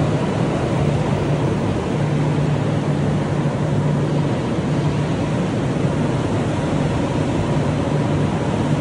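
Steady drone of industrial machinery in a factory hall: a low hum over an even rush of noise, unchanging throughout.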